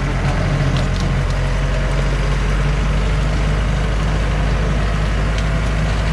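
Engine of a log-laden truck running steadily while the truck is stuck in mud, with a few faint clicks.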